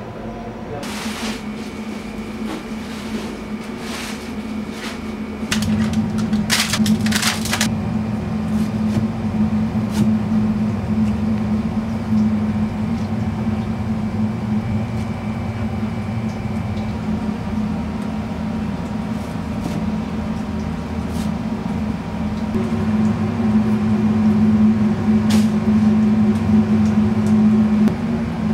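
Steady low electrical hum of kitchen machinery, getting louder about five seconds in, with a few scattered sharp clicks and knocks.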